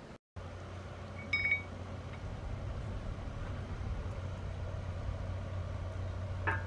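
Steady low hum with a brief metallic ring about a second and a half in and a few light clicks near the end, from a steel recovery shackle being handled with its pin and rubber washers.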